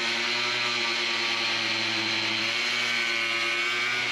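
Angle grinder running at a steady pitch as its disc cuts along a white-faced board.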